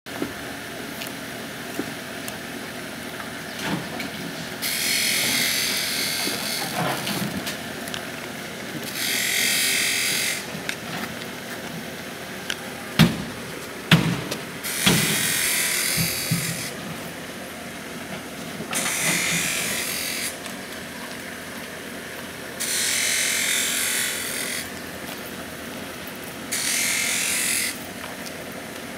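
A power tool running in repeated bursts of one to two seconds with a high hiss, about every four seconds. Two sharp knocks about halfway through.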